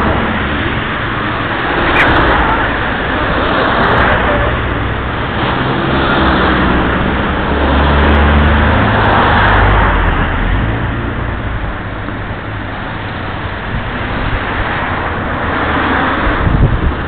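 Road traffic passing close by: the engines and tyres of cars and a heavy vehicle, with a low engine rumble swelling to its loudest about halfway through.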